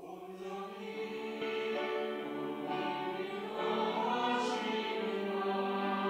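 Mixed church choir singing an anthem in harmony, coming in together after a brief hush and swelling in volume over the first seconds. A sung 's' consonant hisses briefly about four and a half seconds in.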